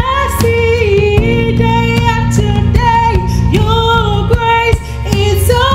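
A woman singing a gospel worship song in long held notes over instrumental backing music.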